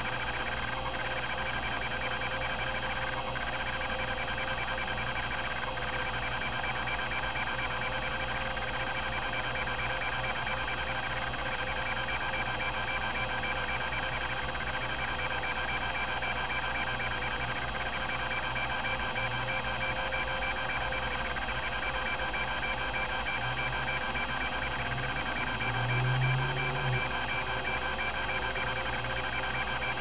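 Epson-Seiko HD-860 20 MB hard drive running, its linear stepper rack-and-pinion actuator seeking back and forth continuously through a test pattern over the 3600 RPM spindle, giving a steady mix of tones with faint breaks every few seconds. A short, louder low hum comes in about 26 seconds in.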